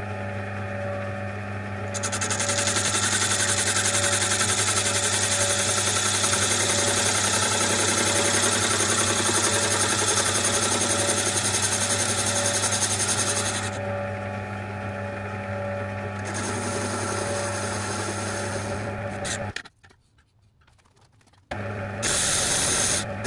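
Metal lathe running, its motor and gears humming steadily, while a lathe tool turns down a piston casting with a steady high cutting noise. The cutting starts about two seconds in, eases off for a couple of seconds in the middle and resumes; the sound drops out for about two seconds near the end, then the lathe is heard again.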